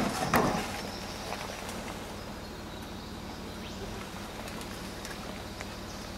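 Land Rover Discovery 4's engine running steadily at low revs as the 4x4 crawls over a rutted dirt track, with one short loud thump about half a second in.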